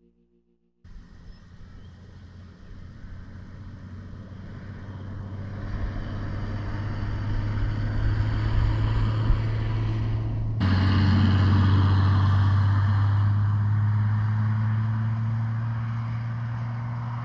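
Engine of an off-road vehicle running as it drives, a steady low drone. It fades in about a second in, builds, and steps up abruptly to a louder level about ten seconds in.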